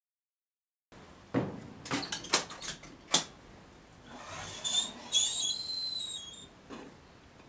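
Kiln being opened: a few sharp clicks and knocks, then the hinged lid squeaking with a high pitch as it is lifted, about five seconds in.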